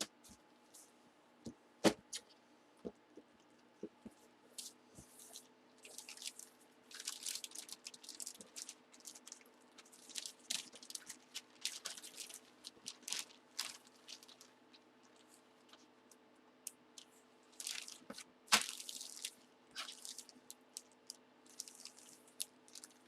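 Plastic packaging crinkling and rustling in short spells, with scattered light clicks and taps, as trading-card box contents are unpacked and handled by hand. One sharper click comes about two seconds in and another near the end.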